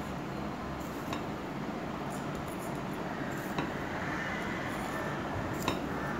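A fork clinking lightly against a stainless steel bowl three times, about a second, three and a half seconds and near the end, while spreading vermicelli, over a steady background hiss.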